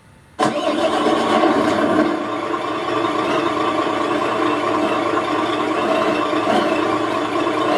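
Scania truck diesel engine sound file played through an ESS Sense One RC sound module's speaker, coming on abruptly about half a second in and then running steadily.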